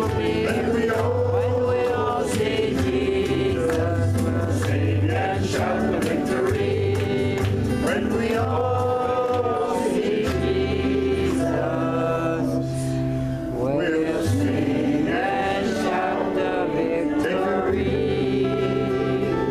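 Live gospel song: a man and women sing together over strummed acoustic guitar and steady low bass notes.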